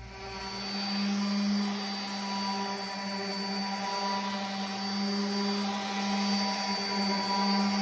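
Singer 15-91 sewing machine's direct-drive motor running at a steady speed, a steady hum with a faint high whine, on a test run after a loose lead with carbon tracking was cleaned.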